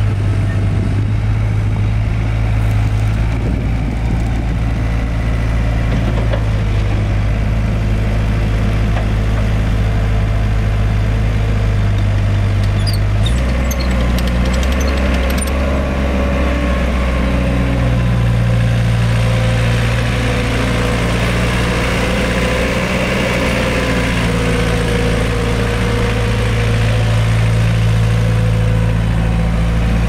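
Cat 257 tracked skid steer's diesel engine running steadily while the machine works its bucket and turns on its rubber tracks. The engine note shifts about 13 seconds in, followed by a few clicks and a broader hiss over the second half.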